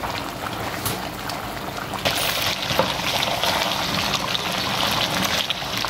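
A pot of chicken, potatoes and tomatoes cooking in oil and liquid, bubbling and sizzling with a steady crackle that grows louder about two seconds in.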